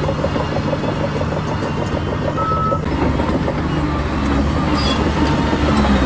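Heavy earthmoving machinery running: a diesel engine's steady low drone that grows a little louder in the second half. A brief high tone sounds about two and a half seconds in.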